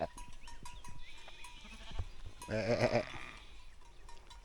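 A sheep bleats once, a loud wavering call, about two and a half seconds in.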